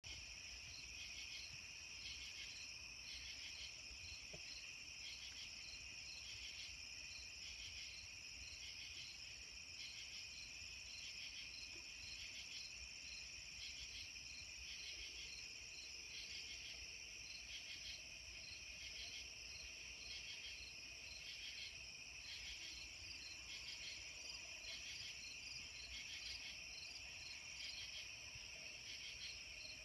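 A chorus of crickets and other night insects: a steady high trill with a fine, even pulsing. Faint low steady tones come in about halfway through.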